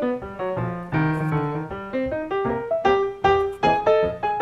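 Background piano music: a run of single notes played a few to the second.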